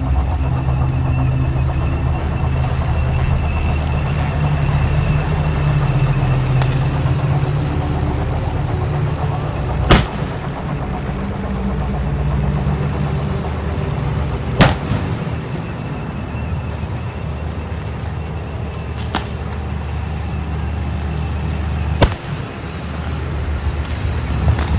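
A heavy vehicle engine running steadily under three sharp, loud blank-fire bangs of a mock battle, about ten, fifteen and twenty-two seconds in, with fainter cracks between them.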